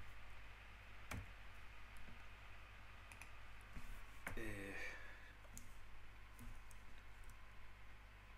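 A few scattered, isolated clicks from a computer's input devices, over a steady low electrical hum.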